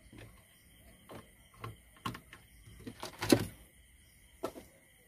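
Handling noise of wires and connectors being plugged back onto a CRT TV's chassis board: a scattered series of short clicks, knocks and rustles, the loudest about three seconds in.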